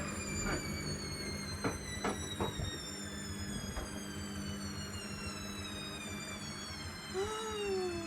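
Hoover Dynamic Next washing machine running with a really quite loud, high-pitched motor whine that has several overtones and slowly falls in pitch, over a steady low hum. A few light clicks sound in the first few seconds.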